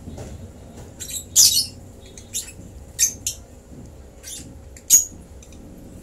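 Baby African lovebird chick giving short, high-pitched begging squeaks while being hand-fed, about six of them, the loudest about a second and a half in.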